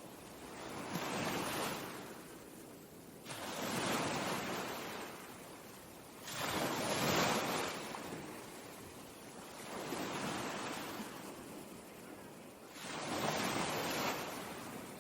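Ocean waves breaking one after another, about every three seconds. Each is a rush of surf that rises, several of them suddenly, then washes away over a couple of seconds.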